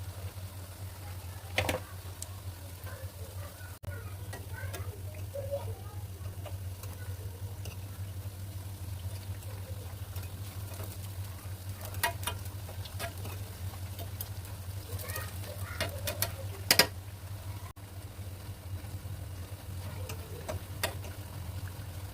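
Kitchen work: scattered clinks and knocks of a utensil, the sharpest about two-thirds of the way in, over a steady low hum.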